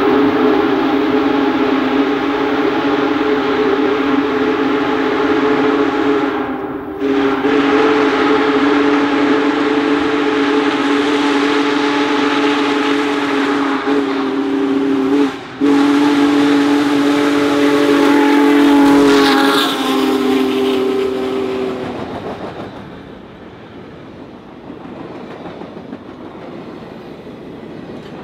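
Union Pacific Big Boy 4014's chime steam whistle, blown as three long blasts that sound a chord of several tones, with two short breaks between them. After about 22 s the whistle stops and the quieter running noise of the train remains.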